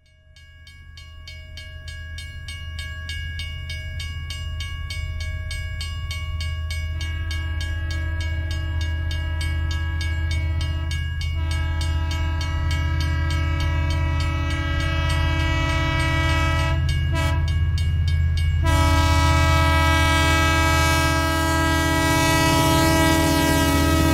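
Train at a station: a low steady engine rumble with several held whining tones above it, fading in over the first few seconds. The tones drop out briefly twice, a hiss joins about eighteen seconds in, and right at the end the tones begin to slide down in pitch.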